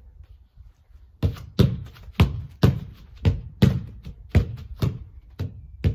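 A football being kicked against a brick wall and played straight back one-touch: about ten sharp thuds, roughly two a second, starting about a second in, as foot strikes alternate with the ball hitting the wall.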